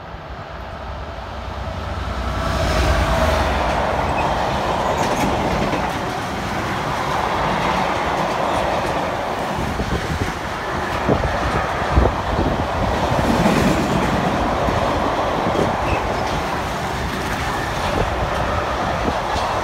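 Freight train of car-carrier wagons running through the station. A low rumble builds quickly over the first few seconds as the locomotive passes, then the wagons clatter steadily over the rails with several sharp knocks, the loudest about twelve seconds in.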